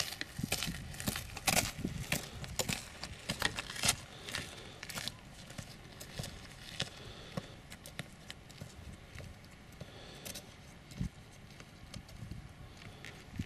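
Footsteps and pole tips clicking on a gravel track, fading as the walker moves away.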